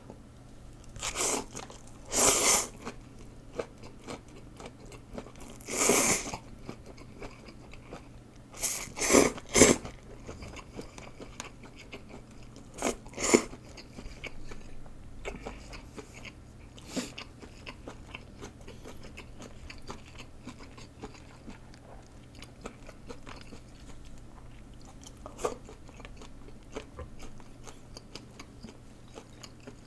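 Close-miked eating sounds from a person eating rice noodles: several loud, short mouth sounds in the first half, then quieter chewing.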